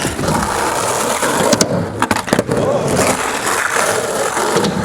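Skateboard wheels rolling on a concrete ramp, with a few sharp clacks between about one and a half and two and a half seconds in.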